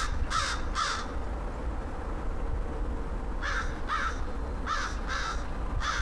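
American crow cawing: two caws in quick succession at the start, then after a pause of about two and a half seconds a run of five more.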